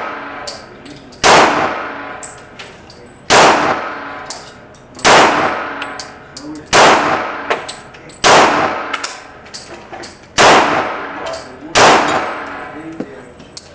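Smith & Wesson SIGMA .40-calibre pistol fired seven times at a slow, steady pace, about one shot every one and a half to two seconds. Each shot rings on in the echo of an enclosed concrete range, with small ticks between the shots.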